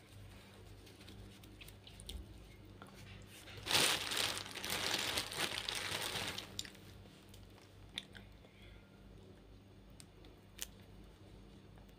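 Crinkling and rustling of plastic wrapping for about three seconds, starting sharply a little under four seconds in, followed later by two short sharp clicks.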